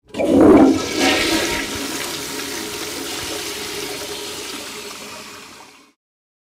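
Toilet flushing: a loud gush of water in the first second or so, then a steady rush of draining water that slowly fades and stops near the end.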